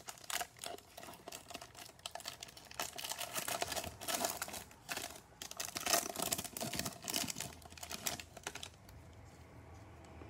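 Clear plastic wrapper on a pack of trading cards crinkling and crackling as gloved hands peel it off and handle the pack, in quick irregular crackles that die away near the end.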